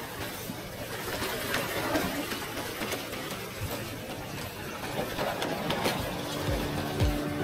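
Spinning reel being cranked to wind in line, with small ticks over a steady hiss. Background music comes in near the end.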